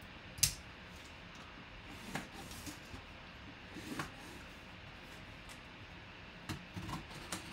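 Scattered clicks and rustles of packaging being handled, with a sharp click about half a second in and a cluster of small knocks near the end.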